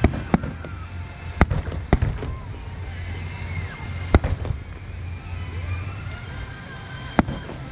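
Aerial fireworks shells bursting: about six sharp bangs at uneven intervals, the strongest about a second and a half and four seconds in, over a low steady rumble.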